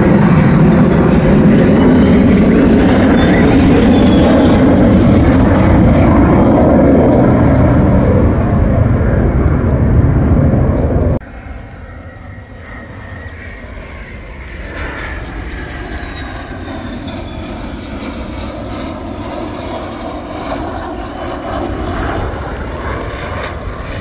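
Jet engines of a pair of fighter jets flying overhead: a loud steady roar that cuts off abruptly about eleven seconds in. After it comes quieter, more distant jet noise with a high whine that falls in pitch.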